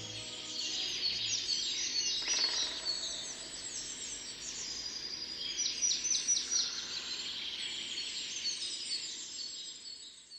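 Several birds chirping and singing together, a dense mix of short, high calls overlapping one another. It fades out at the end.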